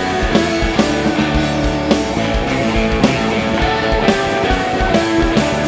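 A band playing an instrumental passage with no singing: guitar over a steady drum beat.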